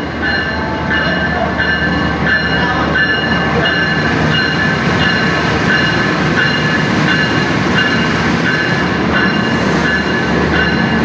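Jayabaya passenger train rolling into the station: a loud, steady rumble of the locomotive and coaches, with high-pitched tones from the wheels coming and going every second or so.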